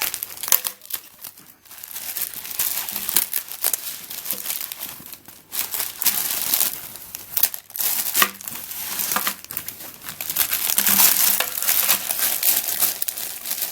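Packaging crinkling and rustling as it is handled and turned over, in irregular bouts with short pauses.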